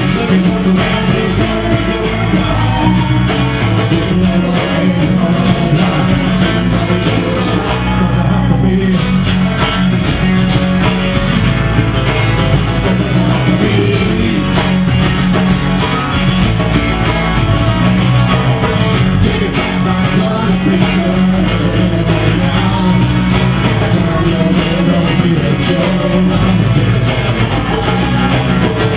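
Live rock band playing a song, with guitar prominent over a steady low bass line.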